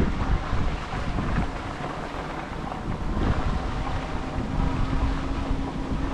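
Wind buffeting the microphone of a moving e-bike, with its tyres rolling and crunching over a gravel road. A faint steady hum comes in during the second half.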